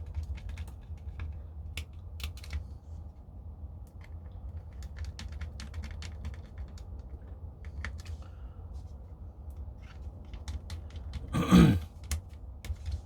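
Scattered small clicks and taps of a plastic airsoft magazine case and a small screwdriver being handled as the case screws are nipped up. About a second and a half before the end there is one louder thump.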